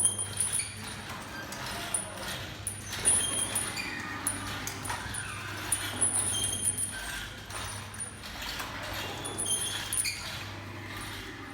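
A mechanical sound machine giving scattered clicks and short, high squeaking and whistling tones at irregular moments, over a steady low hum.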